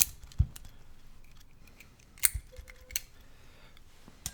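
Sharp metallic clicks and taps of small tools and padlock parts being handled on a workbench, about five distinct knocks spread irregularly across a few seconds.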